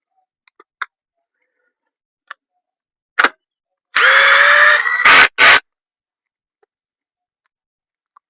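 A small power tool, like a cordless drill or driver, runs for about a second with its pitch rising slightly. It is followed by two loud, short bursts of noise, with a few light clicks of tools and parts around them.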